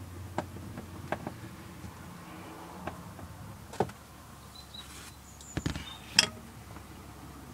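Scattered clicks and taps of a screwdriver and screws against the plastic door card of a Jaguar X-Type as its screws are refitted, with a sharper knock a little after six seconds in.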